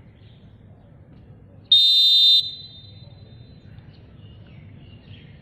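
A volleyball referee's whistle blown once, a short high-pitched blast about two seconds in, with a faint ring trailing after it.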